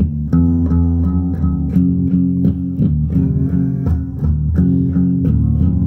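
Guitar music: low plucked notes, changing about every half second, over a steady beat of sharp ticks about three a second.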